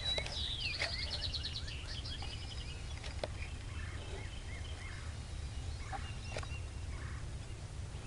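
Wild turkeys gobbling: a rapid rattling call in the first couple of seconds, then other birds calling in short repeated notes, over a steady low rumble.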